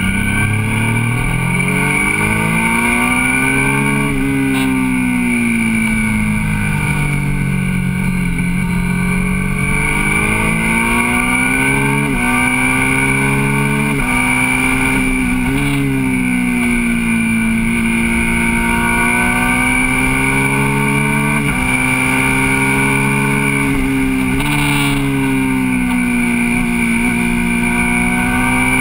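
Motorcycle engine heard from onboard on a winding road, its revs rising and falling smoothly through the corners, with several sudden jumps up in pitch as it is shifted down, over a rush of wind.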